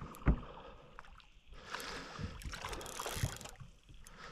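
Water splashing and sloshing around a hooked trout being played near the reeds, with a sharp low thump just after the start and a few duller knocks in the middle.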